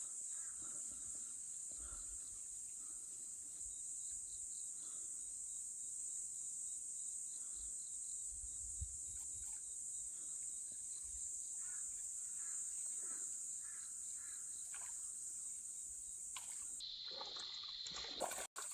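Crickets or other night insects singing in a steady, high-pitched chorus, with faint scattered drips and small knocks of water.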